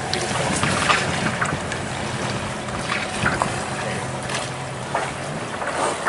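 A boat's engine running with a steady low hum while water splashes and rushes past the hull; the hum rises briefly near the end.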